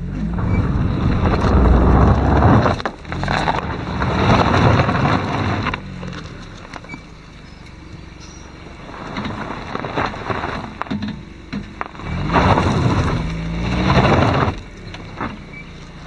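Hyundai hatchback driving slowly on a loose gravel track: engine running with its note rising and falling, and tyres crunching over the gravel. The rumble swells loud in surges near the start and again toward the end, and is quieter in the middle.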